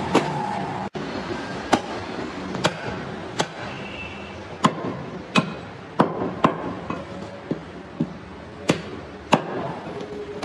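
Heavy meat cleaver chopping bone-in goat meat on a wooden chopping block: about a dozen sharp chops at an uneven pace, roughly one a second.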